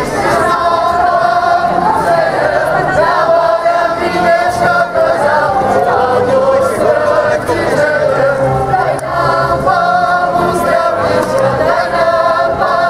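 A group of people singing a song together in chorus, loud and unbroken.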